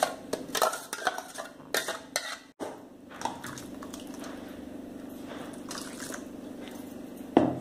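A steel spoon scraping and knocking thick ground coconut paste out of a steel grinder jar into a steel pot, a quick run of clinks and taps. About two and a half seconds in, this gives way to a steady, quieter pour of thin liquid from a steel vessel into the pot.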